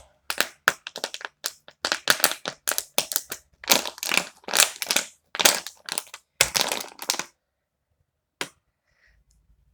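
A rapid series of crisp crunching and crackling noises, stopping about seven seconds in, with one more crackle a second later.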